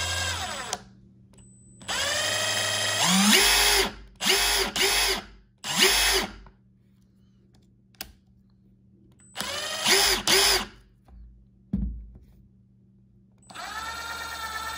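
Milwaukee M18 Fuel 2853 brushless 1/4-inch impact driver, fitted with a 1/2-inch stubby anvil, run with no load in a series of trigger pulls. The motor whine rises as it spins up each time; some runs last a second or more and others are short blips.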